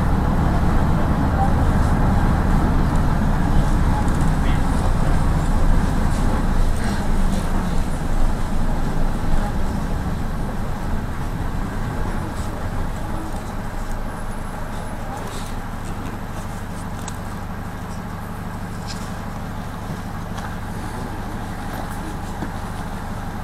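Inside a minibus: engine and road noise while driving, fading through the first half as the minibus slows down, then a steadier, quieter engine idle once it has stopped.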